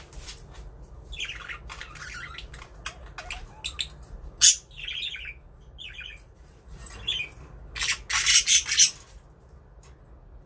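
Budgerigars chirping and chattering in short bursts. There is a sharp, loud squawk about four and a half seconds in, and a cluster of louder, harsher squawks from about eight to nine seconds in.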